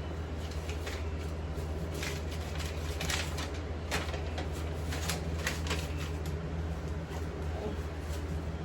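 Things being picked up and handled during room tidying: a few short clicks and rustles, most of them between about two and six seconds in, over a steady low hum.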